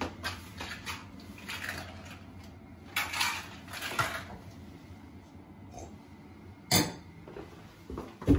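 Clinks and clatters of knives and other small items being picked up and put down on a bathroom counter. The clatters come as several separate knocks, the sharpest about two-thirds of the way through.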